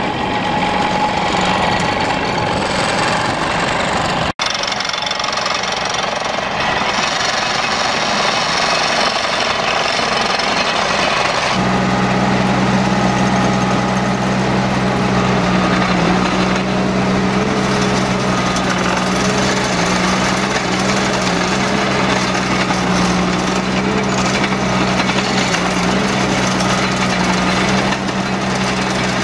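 HUDDIG backhoe loader's diesel engine working under load while its cable plough is dragged through the verge soil, a dense mechanical clatter. About a third of the way in, a steady low drone joins and holds to the end.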